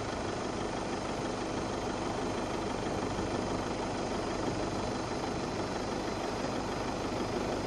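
Steady hum of a vehicle's engine running, with no change in speed.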